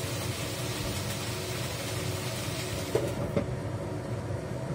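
Bell peppers and dried radish sizzling in a frying pan over a gas flame, over a steady low hum. About three seconds in, a lid clicks onto the pan and the sizzle turns muffled.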